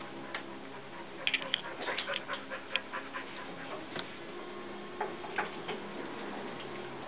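Dogs moving about and playing, making a scatter of short, light clicks, thickest in the first few seconds, over a steady low hum.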